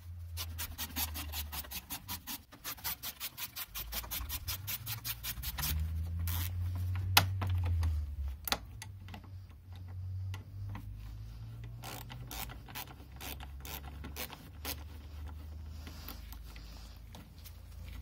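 Hand ratchet clicking quickly and evenly, about five clicks a second, as a fastener is backed out, then a single sharp snap and a few scattered clicks and scrapes of parts being handled over a low rumble.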